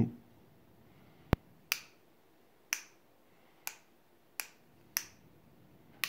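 A single sharp tap, then a series of six crisp clicks at roughly one per second.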